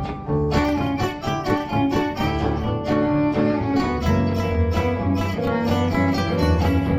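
Instrumental music played on string instruments, with a low bass line beneath.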